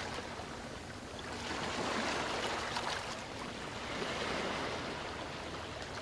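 Small waves lapping and washing up the sand at the water's edge of a calm, sheltered beach, swelling twice.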